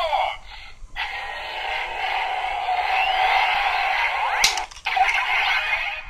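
Two DX Drive Driver toy belts playing their stock transformation sound effect through small built-in speakers: a sustained electronic rushing sound with sliding tones, then a sharp rising swoosh about four and a half seconds in.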